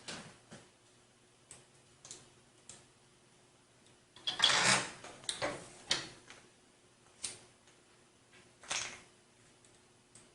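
Scattered light clicks and knocks of hands handling a PC case and its parts during assembly. A louder scraping rustle comes about four and a half seconds in.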